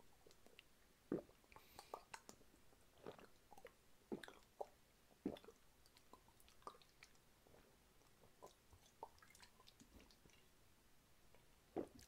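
Faint, irregular gulps and swallows of a person chugging a drink straight from a plastic bottle, with small clicks of the mouth and throat every second or so.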